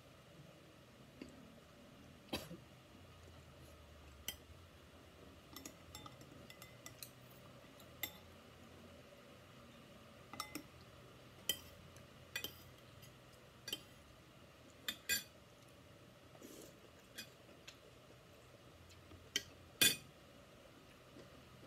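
Eating a meal from a plate: irregular light clicks and clinks of crockery and cutlery, well over a dozen, the loudest near the end.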